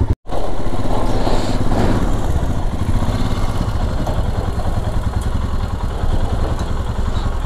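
Royal Enfield Himalayan's single-cylinder engine idling steadily while the motorcycle stands still.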